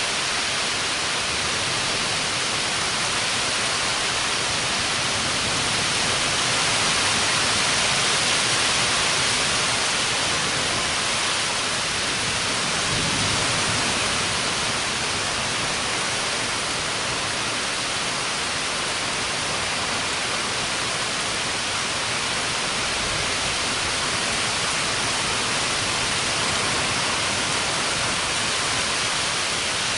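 Heavy rain falling steadily: an even, dense hiss that swells a little about a quarter of the way in.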